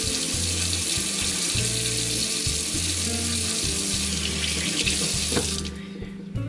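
Kitchen faucet running in a steady stream into a stainless steel sink as hands are rinsed under it, then shut off near the end.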